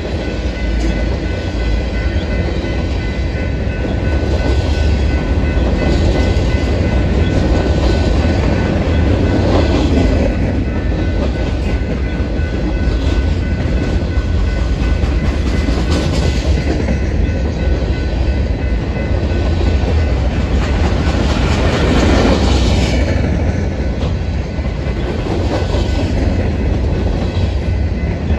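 Loaded Union Pacific freight cars (tank cars, boxcars and covered hoppers) rolling past on the rails: a loud, steady rumble of steel wheels. It swells a few times as individual cars and trucks go by.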